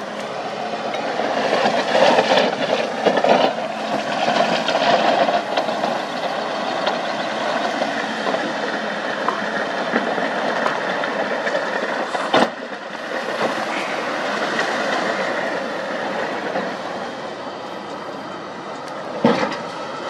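Heavy diesel earthmoving machinery running steadily as a dump truck raises its bed and tips out a load of rock and earth, loudest during the first few seconds. There is a sharp knock about twelve seconds in and another near the end.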